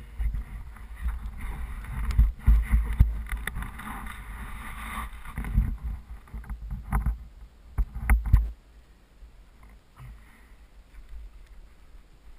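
Close knocking, scraping and rubbing on a helmet-mounted action camera as it is swivelled on its mount, with dull thumps and low rumble; the knocks stop about eight and a half seconds in, leaving a faint low rustle.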